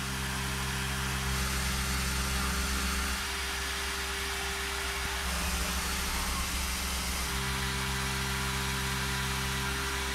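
Tormach 770M+ CNC mill running a 1.5-inch face mill across the top of a metal block: a steady machine hum with a hiss of cutting. Its tone shifts a few times, about 3, 5 and 7 seconds in.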